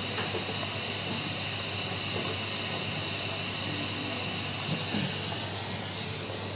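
Steady hiss over a faint low hum, dipping slightly about five seconds in.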